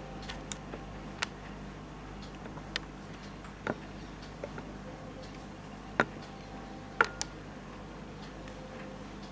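Writing on a board: about a dozen irregular sharp taps and clicks of the writing tip striking the surface, the loudest about six and seven seconds in. A steady low hum runs underneath.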